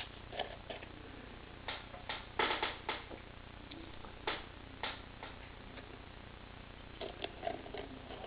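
Light clicks and taps of a test tube and its cap being handled and set down against a clear plastic ant arena. They come in scattered knocks, with a quick cluster about two and a half seconds in and another near the end.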